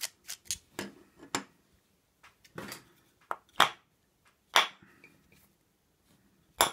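Short metal clicks and taps from a screwdriver and the small metal parts of an ASSA Ruko 2 padlock being handled as the lock is taken apart: about ten scattered sharp ticks, the two loudest a little past the middle.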